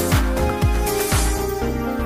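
Electronic background music with a kick drum beating about twice a second over sustained chords. The beat drops out just over a second in.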